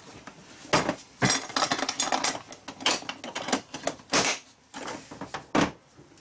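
Keter Connect plastic tool boxes being set down and clipped onto a trolley stack: a run of hard plastic clacks and knocks, with loud snaps about four seconds in and near the end as the box is pressed down and latched.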